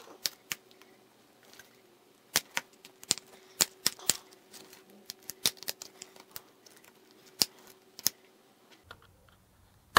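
The snap-fit clips of a phone's back cover clicking and snapping loose as a plastic pry tool is worked around the edge: a string of irregular sharp clicks.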